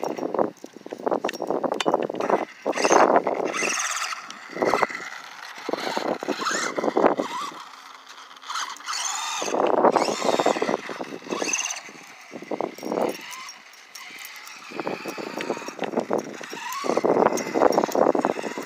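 A Redcat Volcano 18 small electric RC monster truck is driven in short bursts of throttle. Its motor whines up and down in pitch, and its tyres scrub over concrete and the ramps, with brief pauses between runs.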